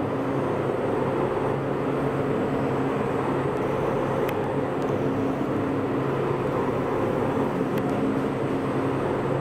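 Biscuit production line machinery running: a steady mechanical hum of motors and conveyors, with a couple of faint ticks.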